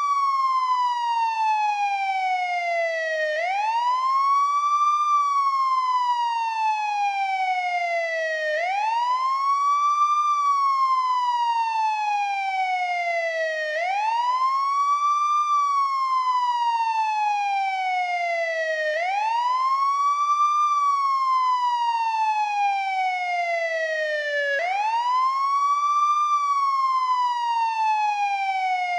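American police siren on its wail setting: a tone that rises over about a second and a half, then falls slowly for about three and a half seconds, repeating about every five seconds at a steady level.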